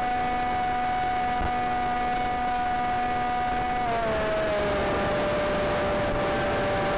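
Blade Theory W's electric motor and propeller running as a steady whine over a haze of air noise, heard from the onboard camera. About four seconds in, the whine glides down in pitch and settles lower as the throttle eases off.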